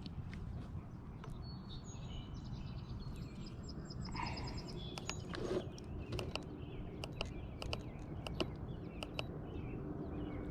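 A songbird singing a quick run of repeated high notes in the first half, with scattered sharp clicks and knocks of gear being handled, over a steady low rumble.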